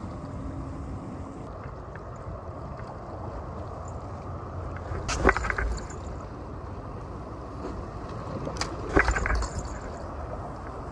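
Steady wind and water noise at the seaside, with a low rumble, broken by two short sharp sounds about five and nine seconds in.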